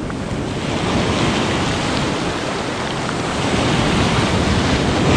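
Sea surf washing and foaming over a sandy shore, a steady rush of water that swells as a wave breaks near the end.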